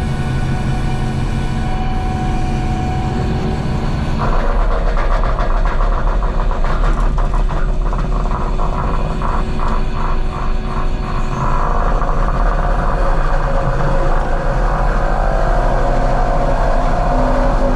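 Kubota SVL97 compact track loader's diesel engine running hard while working a forestry mulching head through brush. About four seconds in the sound grows louder and rougher, fluttering for several seconds before settling into a steady grind.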